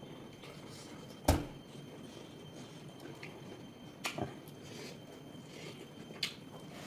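Mealtime clicks and knocks: one sharp knock about a second in, two softer clicks about four seconds in and another near six seconds, over a steady low background noise.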